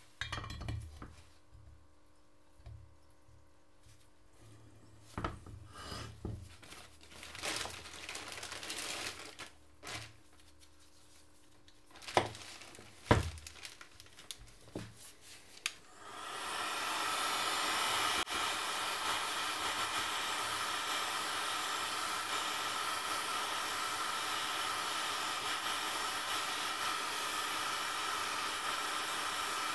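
Small metal parts knocking and clinking as gears are set into an aluminium motorcycle-engine crankcase half. About halfway through, an electric heat gun switches on and runs with a steady blowing hiss while it heats the crankcase around the main bearing seat.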